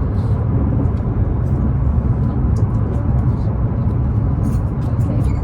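Steady low rumble of a moving high-speed passenger train heard from inside the carriage, with a few faint ticks and rattles.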